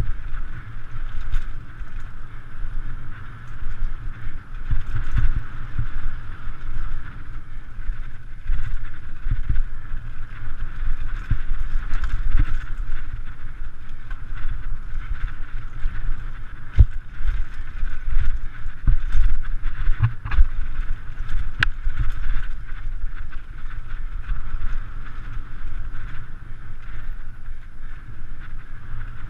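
Mountain bike riding fast down a rough dirt trail, heard from a mounted action camera: steady wind rumble on the microphone with constant rattling and sharp knocks as the bike hits bumps, the loudest knocks a little past the middle.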